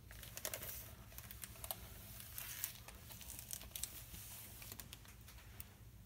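Faint paper rustling and light clicks from a picture book being closed and handled, its pages and cover shifting.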